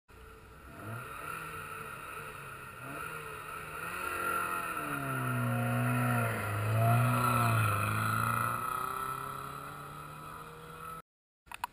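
Vintage rally car driving a gravel stage, approaching and passing close by at speed. Its engine note climbs and then swings down as it goes past, loudest in the middle, then fades away.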